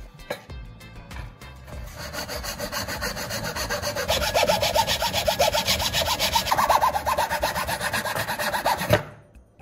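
A drill bit being sharpened: fast, even rasping strokes of metal against an abrasive. The strokes build up from about two seconds in, get louder, and stop abruptly near the end. Faint background music plays under them.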